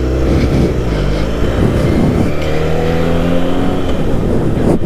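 Benelli 302R's 300 cc parallel-twin engine through its stock exhaust, pulling away under acceleration. The engine pitch rises and falls several times, then holds and climbs slowly.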